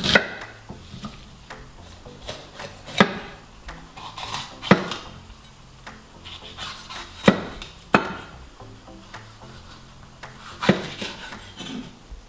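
Chef's knife cutting onion and then a green bell pepper on a wooden cutting board: about six sharp knocks of the blade hitting the board, unevenly spaced a second or more apart, with quieter cutting sounds between.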